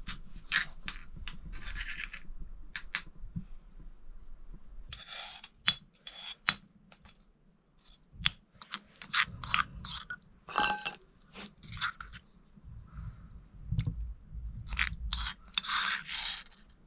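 Tree tomato being mashed on a flat Nepali grinding stone (silauto) with a stone pestle. A metal spoon scrapes the wet paste off the stone and pestle in short scrapes and clicks, with a brief metallic ring about halfway through.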